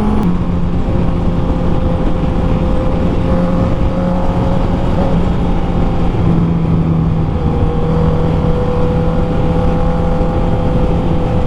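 Honda CB650R's inline-four engine with an Akrapovic full exhaust system running at a steady cruise, heard from the saddle over wind noise. The engine note drops a little just after the start, then holds steady.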